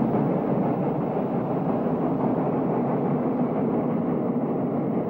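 Steam locomotive working with a train, a loud, steady running sound.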